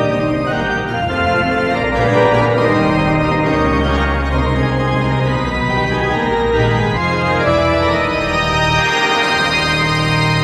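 Organ music playing a melody over shifting chords, part of a hockey team's goal celebration track.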